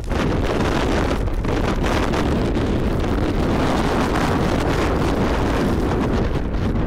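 Blizzard wind blowing on a cell phone's microphone: a loud, steady rush with a heavy low rumble. It comes up sharply at the start and holds.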